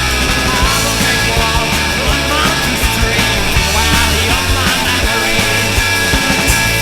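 Rock band music playing loudly, with drums and a steady bass line under higher instrumental parts.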